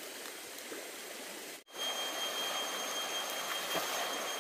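Shallow river running over stones, the flow a steady rush. It drops out briefly about a second and a half in, then comes back louder, with a steady thin high-pitched whine over it.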